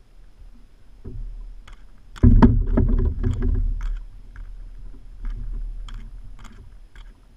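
A monofilament cast net is hauled out of the water into the kayak. About two seconds in comes a loud burst of water sloshing and dripping, with the net's lead weights clattering, lasting about two seconds. Scattered single clicks of the weights follow as the net is gathered up for another throw.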